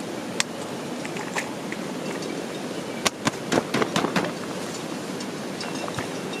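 Steady hiss of heavy rain, with a few sharp clicks and then a quick run of clicks and knocks about three to four seconds in.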